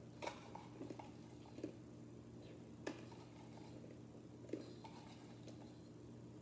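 A few scattered small clicks and knocks, the sharpest about three seconds in and again past four seconds, from fingers picking almonds out of a can of Blue Diamond almonds, over a faint steady hum.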